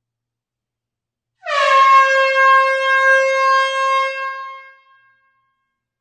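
Air horn sounding one long blast in a closed hall, beginning about a second and a half in. It opens with a quick dip in pitch, holds one steady note for about three seconds, then fades away.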